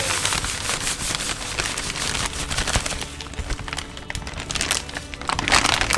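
Plastic zip-top bag crinkling and rustling as it is handled and filled with dry fish-fry breading mix.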